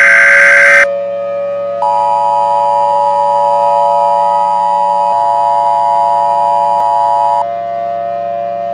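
Emergency Alert System tones: the tail of a harsh digital SAME header burst, cutting off about a second in, then the steady EAS two-tone attention signal sounding for about five and a half seconds. A continuous siren-like drone with a low hum runs underneath throughout.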